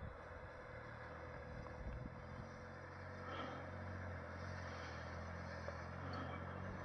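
A vehicle's engine running steadily at low revs as it creeps down a steep rock slope. The low hum grows stronger about two seconds in, with a few knocks near the start.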